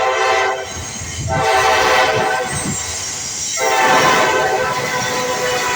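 Norfolk Southern freight locomotive's air horn sounding: a short blast, then two long ones, over the low rumble of the moving train.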